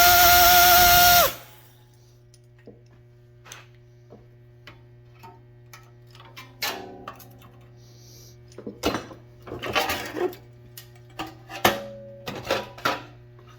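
A power cutting tool cuts the sheet-metal floor pan, then stops about a second in, its whine falling as it spins down. After that come scattered light clicks and knocks of the metal being handled, over a low steady hum.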